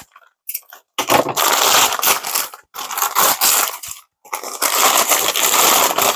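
Packing paper and bubble wrap being crumpled and pulled apart while unwrapping a package: a dense crackling that starts about a second in and comes in three long stretches with short pauses between them.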